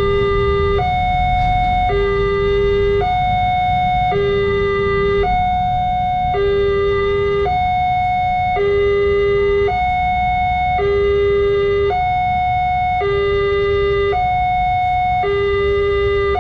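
Electronic two-tone railway level-crossing warning siren sounding continuously, alternating between a low and a high tone about every second, the warning that a train is approaching and the barriers are down. A steady low rumble runs underneath.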